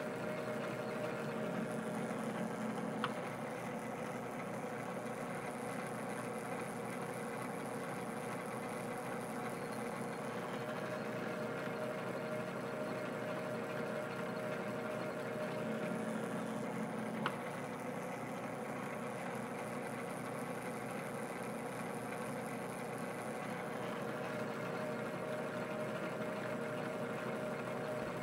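Metal lathe running steadily in back gear, its motor and gear train giving an even hum with a steady tone, during single-point thread-cutting passes. Two sharp metallic clicks, about fourteen seconds apart, mark the passes.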